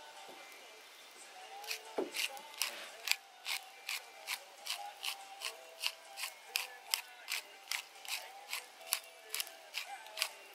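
Background music with a light clicking beat, about three clicks a second, over a soft melody.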